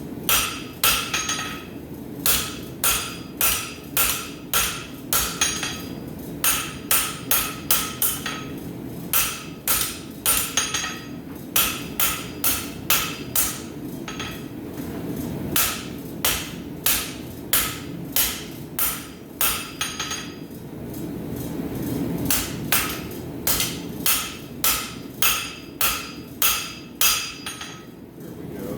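Rounding hammer striking hot steel bar on an anvil, drawing out the metal: runs of quick blows, about two a second, each with a short metallic ring, broken by brief pauses. A low steady rumble runs underneath.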